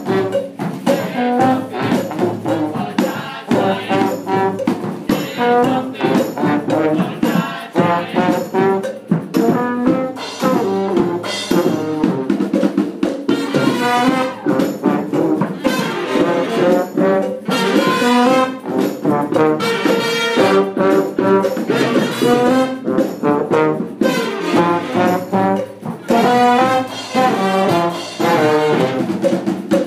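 Marching brass band playing an upbeat tune: sousaphone, saxophones, clarinet and other brass with cymbals, the notes falling in a steady rhythm.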